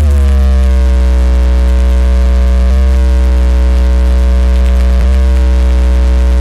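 Very loud electronic music from a DJ sound system: a heavy, steady deep bass drone under a tone that slides down in pitch, starting again about every two and a half seconds.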